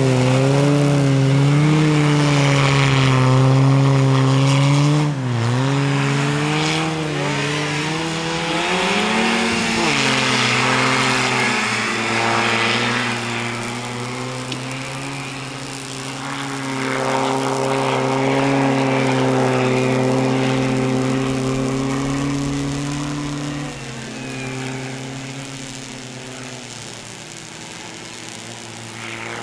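Half-track snow rail's engine running under load as it drives through deep snow. Its pitch dips and swings back up around five and ten seconds in, then holds steadier and fades as the machine moves away.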